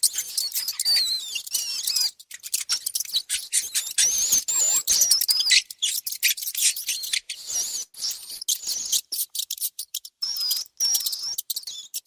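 Mice squeaking: many short, high-pitched squeaks that waver up and down, over a busy patter of small clicks and scratches.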